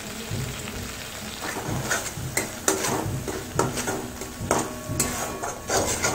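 A flat metal spatula stirring and scraping thick spice paste frying in a metal kadai, over a steady sizzle. From about a second and a half in, irregular scrapes and knocks of the spatula against the pan come one or two a second.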